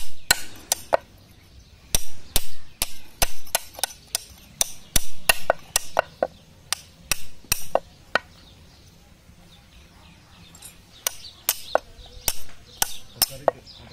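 A farrier's hoof-cutting tool chopping into a Kangayam bull's overgrown hoof: sharp strikes in irregular runs, with a pause of about two seconds past the middle before the strikes resume.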